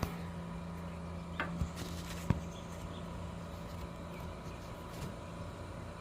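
A steady low hum with a few light clicks and one sharp knock a little over two seconds in, from parts and tools being handled during engine-bay disassembly.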